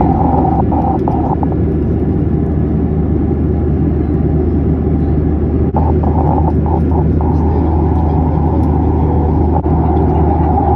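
Steady loud cabin drone of a Boeing 737-800 in cruise: a deep engine and airflow rumble with a low hum underneath, interrupted only by two brief dips in level.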